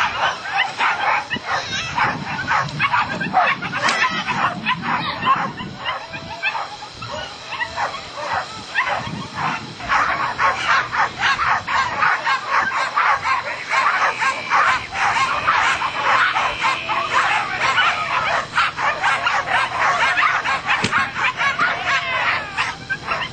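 Dogs barking nonstop, many short barks close together and overlapping.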